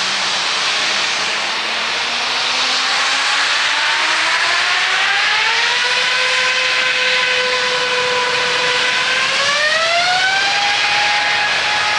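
Jet airliner's turbofan engines spooling up over a loud rush of engine noise. The whine rises and holds steady, then climbs again in a second step about nine seconds in and settles at a higher pitch.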